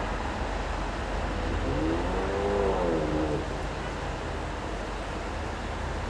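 Steady city street traffic noise, a continuous rush with low rumble. About two seconds in, a brief pitched sound rises and falls over it for about a second and a half.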